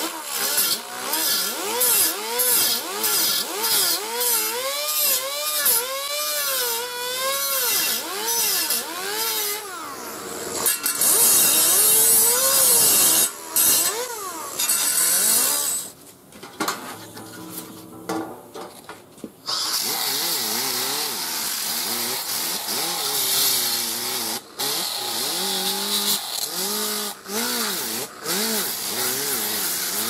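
Pneumatic 5-inch high-speed sander grinding weld beads flush on a sheet-metal patch panel, its pitch swinging up and down as the disc bites and frees. After a short lull about halfway through, a sanding disc grinds steadily across the face of the panel.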